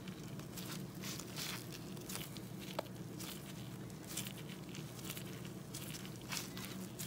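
Soft rustling and scraping of gloved hands twisting a throttle cable through the silicone bushing in a carburetor top, with one small sharp click about three seconds in, over a steady low hum.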